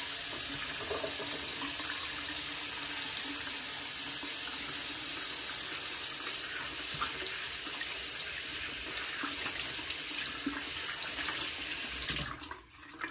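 Tap running into a sink during handwashing, a steady rush of water that is shut off near the end.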